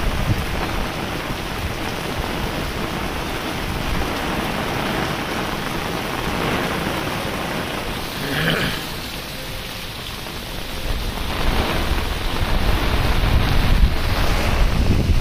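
Heavy rain pouring down onto a lake and wet paving, a dense steady hiss, with wind buffeting the microphone in low rumbles that are stronger near the start and the end.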